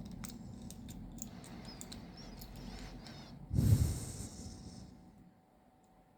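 Small clicks and scrapes of tools and parts being handled on a workbench, with a louder knock about three and a half seconds in that dies away over a second or so.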